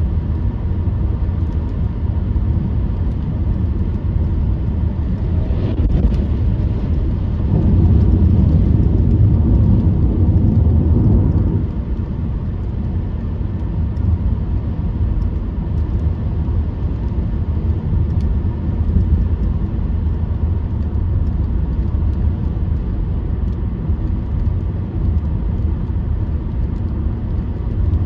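Steady low rumble of a car driving: road and engine noise, swelling louder for about four seconds a third of the way in.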